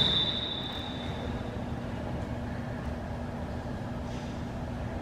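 The end of a referee's whistle blast, one steady high tone that dies away in the gym's echo within about the first second, followed by steady hall noise with a faint low hum.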